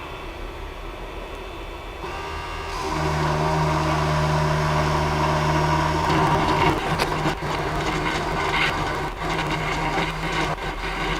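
Creality CP-01's CNC engraver spindle motor starting about three seconds in with a steady hum. From about six seconds it runs rougher, with scattered ticks, as the machine works through the engraving job.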